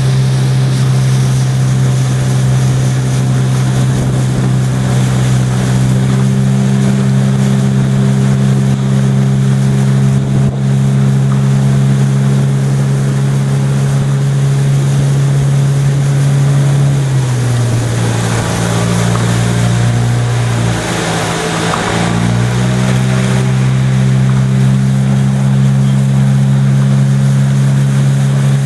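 Outboard motor of a coaching launch running at a steady pitch. It eases off to a lower pitch about 17 seconds in and comes back up to its earlier speed around 22 seconds in.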